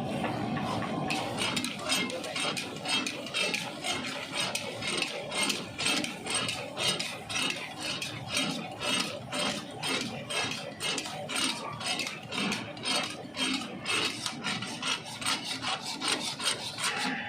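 Metal spatula scraping and stirring in a karahi wok in quick rhythmic strokes, about three a second.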